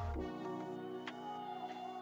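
Background music: a melodic track with sustained notes and a light beat, the bass dropping out and returning near the end.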